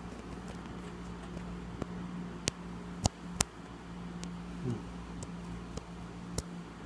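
A steady low hum with several sharp clicks, the loudest two close together about three seconds in.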